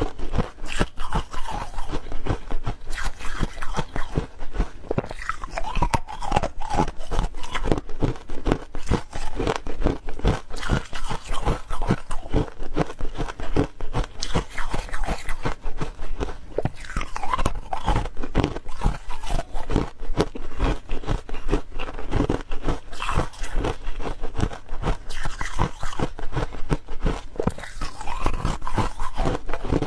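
Hard frozen ice pieces being bitten and chewed close to a lapel microphone: a dense, continuous run of sharp cracks and crunches.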